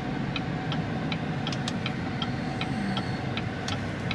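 Pickup truck's turn-signal indicator ticking steadily, about three clicks a second, over the low hum of the engine inside the cab.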